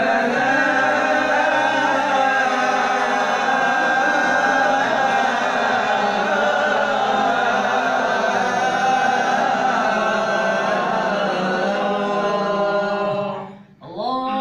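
Call to prayer (ezan) chanted in the Hicaz maqam by a male voice: the line "hayya 'ala al-falah" is drawn out as one long, ornamented melodic phrase. It breaks off briefly near the end before the next phrase starts.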